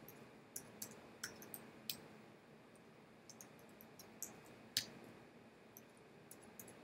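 Computer keyboard typing: faint, irregular key clicks, with one louder click about five seconds in.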